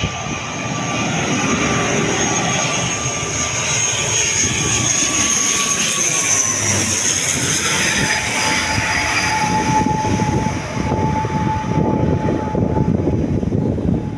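ATR 72-600 twin-turboprop airliner passing low overhead on landing approach: the steady drone of its turboprop engines and six-bladed propellers, with a whine that drops in pitch as it goes over, about seven seconds in.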